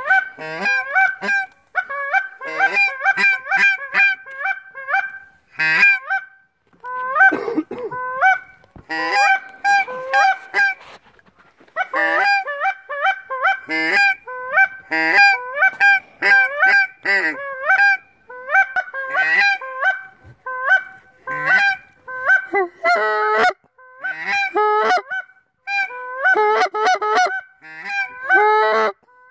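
Goose honking: loud, rapid honks and clucks in runs of several a second, with brief pauses between runs.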